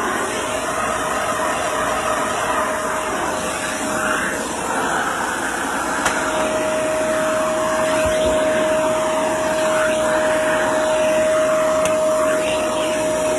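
Shark Navigator upright vacuum cleaner running: a steady motor whine over the rush of suction, growing a little louder about halfway through.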